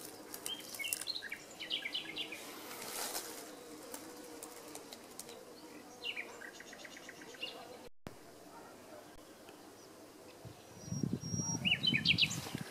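Small birds chirping outdoors in short runs of high notes, with a quick rattling trill about halfway through and more chirps near the end. A low rumble rises near the end and is the loudest sound.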